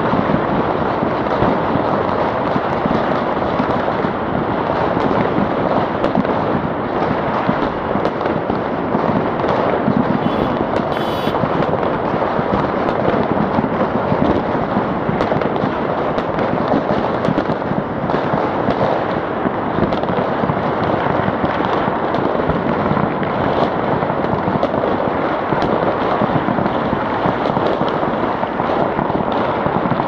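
Strings of firecrackers and fireworks going off in a dense, continuous crackle, a steady loud barrage of pops with no break.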